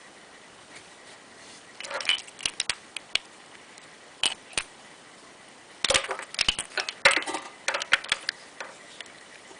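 Metal parts and tools being handled during moped repair: sharp clinks and clatters in bursts, a short cluster about two seconds in, two clicks near the middle, and a denser run of clattering from about six to eight seconds.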